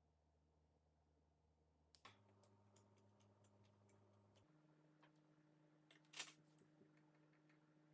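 Near silence: faint room tone with sparse light ticks, and one clearer click about six seconds in.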